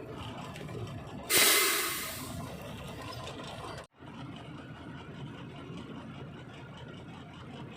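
Heavy truck engine running, with a loud hiss of air-brake air released about a second in that fades over about a second. The sound drops out briefly near four seconds in, then the engine runs on.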